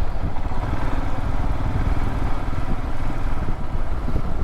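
Motorcycle engine running while the bike is ridden, mixed with heavy wind rumble on the microphone.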